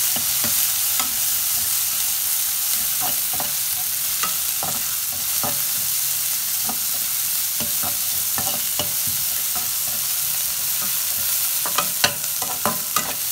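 Chopped onions, garlic and dried red chillies sautéing in hot oil in a metal kadai: a steady sizzle with the metal spatula scraping and knocking against the pan as it stirs. The knocks come quicker and louder near the end.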